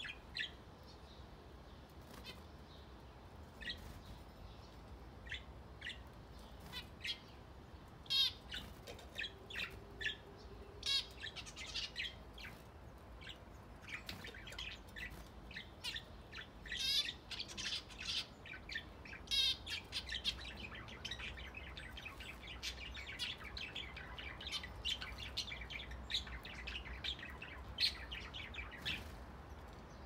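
Budgerigars and zebra finches chirping and calling: many short high chirps, becoming busier chatter with warbled trills about halfway through.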